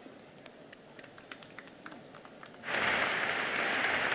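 Audience applause: a few scattered claps, then the whole audience breaks into steady applause about two-thirds of the way through.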